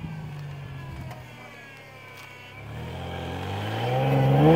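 Pickup truck's engine running low and steady, then revving higher and louder over the last two seconds as the truck pushes its plow through deep snow.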